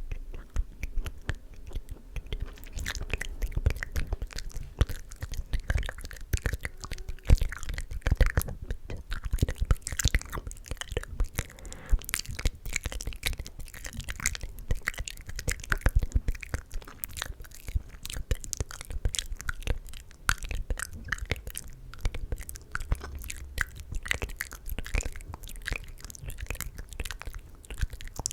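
Close-miked wet mouth sounds: a steady stream of quick clicks, smacks and tongue pops, mixed with inaudible whispering.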